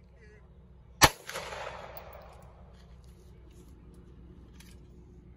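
A single pistol shot from a handgun fitted in a Roni carbine conversion kit, about a second in, followed by a long echo that dies away over the next second or two.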